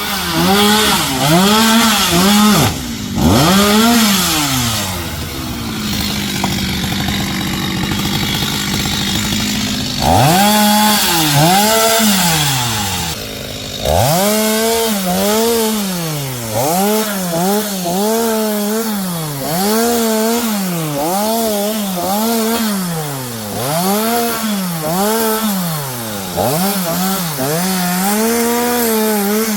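Two-stroke Stihl chainsaw cutting wood, its engine speed rising and falling over and over as the throttle is worked. It is held at a steady high speed for several seconds in the middle and briefly drops away twice.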